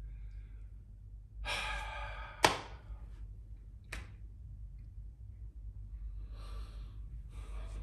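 A man sighs with a long breathy exhale about a second and a half in. A sharp click follows just after, the loudest sound, and a softer click comes near four seconds. Faint breathing returns near the end.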